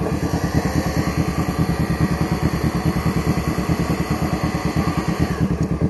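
Kawasaki Ninja 650's parallel-twin engine idling steadily, an even rapid low pulse.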